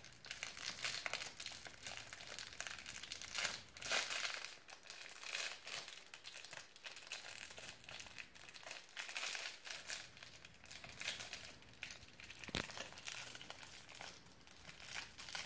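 Small plastic wrapper of an LOL Surprise toy crinkling and rustling in a child's hands as she picks and pulls at it, trying to get it open, with one sharp click late on.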